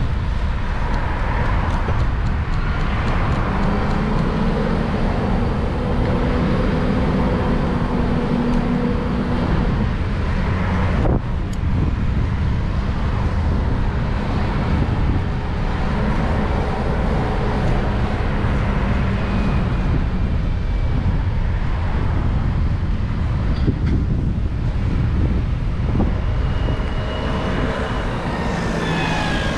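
Road traffic passing close by: car and vehicle engines with tyre noise over a steady low rumble. Engine tones swell and fade as vehicles go by, and near the end a passing vehicle's pitch falls.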